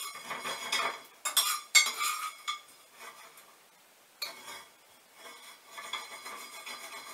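Metal pans and a utensil clanking and clinking on a stovetop: several sharp knocks in the first couple of seconds, then one more about four seconds in.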